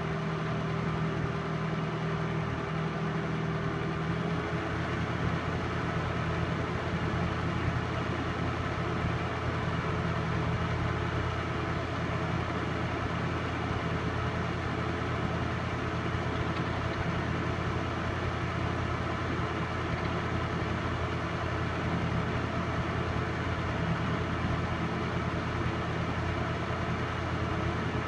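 Steady motor whir and hum of a film projector running.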